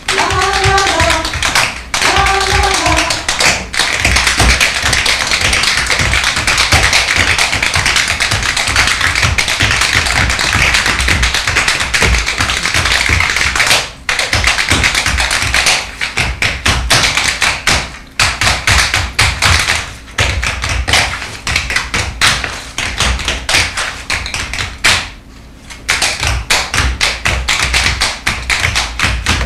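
Several dancers' tap shoes striking a wooden stage in fast, dense rhythms. About halfway through, the taps turn into sharper, more separate strokes with short gaps between phrases, and they dip briefly a few seconds before the end. A short pitched phrase sounds twice at the very start.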